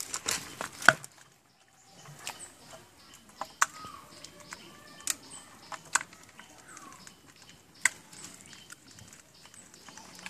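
Hands working at the mouth of a plastic water jug among leaves and twigs: a handful of sharp clicks and knocks, the loudest about a second in, over faint rustling.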